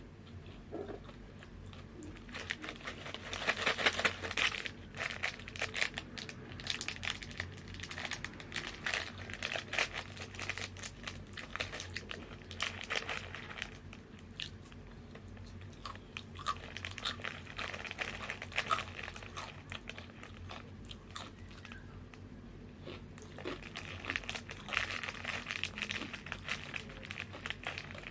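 Crunchy Tattoos chips being bitten and chewed close to the microphone, a dense run of crisp crunches. The bites are loudest a few seconds in and again near the end, with softer chewing in between.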